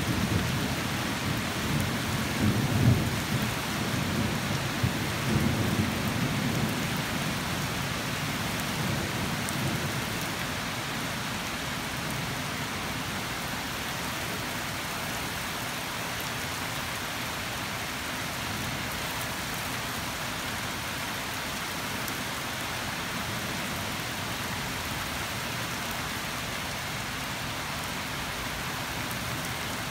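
Rain falling steadily, with thunder rumbling low through the first several seconds and dying away, leaving only the rain.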